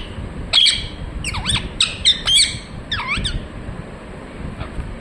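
Ringneck parrot giving a quick series of short, shrill squawking calls, about nine in the first three and a half seconds, then falling quieter with one faint call near the end.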